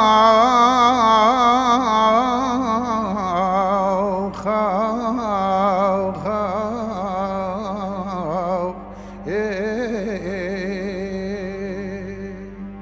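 Middle Eastern-style music: a slow, ornamented melody line with heavy vibrato, held over a low note and broken by short pauses between phrases, fading near the end.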